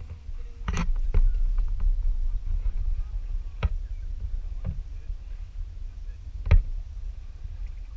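Knocks on a small aluminium boat as a long wooden pole is worked from it: four sharp knocks, the loudest near the end, over a steady low rumble.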